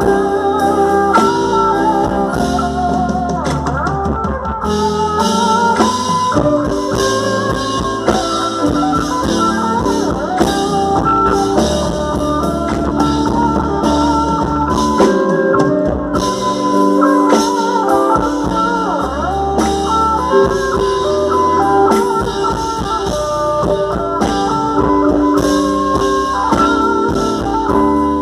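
Band playing instrumental music at a sound check: guitar over drum kit and a low bass line, with a blues-rock feel.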